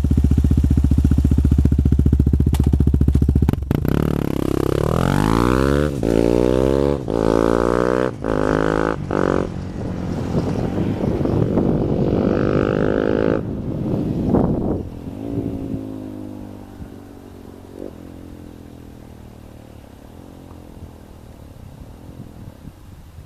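Yamaha WR250X single-cylinder four-stroke engine through twin titanium slip-on silencers with no baffles fitted, loud. It idles steadily, is blipped up and down several times from about four seconds in, held at higher revs for a few seconds, then drops away and runs much quieter for the last third.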